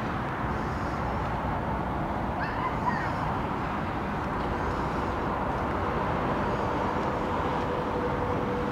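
Distant city traffic noise: a steady, even hum of road traffic heard from a vantage point above the city.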